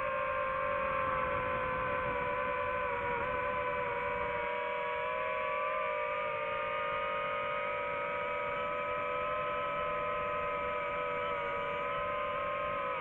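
DJI FPV drone's motors and propellers whining steadily in flight, the pitch drifting slightly up and down.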